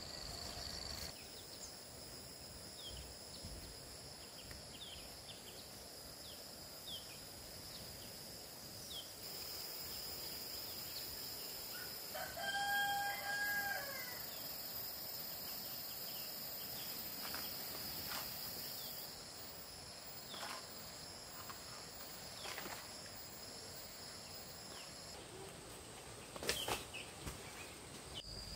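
A rooster crows once, about halfway through, over a steady high insect drone. A few short bird chirps come and go, and a sharp knock sounds near the end.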